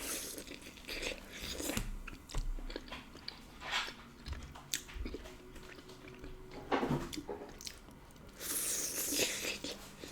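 Close-miked chewing and biting of rotisserie chicken dipped in Cajun butter sauce, in irregular bursts of short clicks and mouth noises, with a longer noisy stretch near the end.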